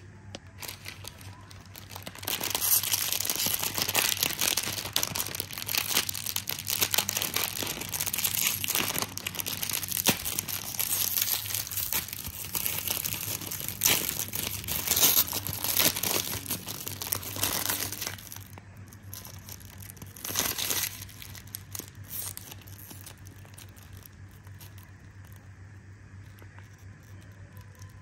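Clear plastic snack-cake wrapper crinkling and crumpling in the hands, with some tearing as it is opened. The dense crackling starts a couple of seconds in and stops about two-thirds of the way through. One more short burst follows, then only faint handling.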